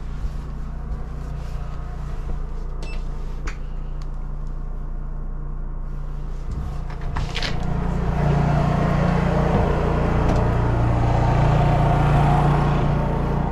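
A small engine idling steadily with an even low hum, muffled at first and much louder from about eight seconds in, with a few light knocks and clicks along the way.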